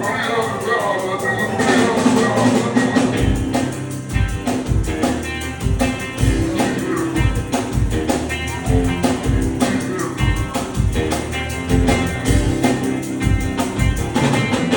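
Live rock band playing an instrumental passage with no singing. A drum kit and bass keep a steady beat under guitar.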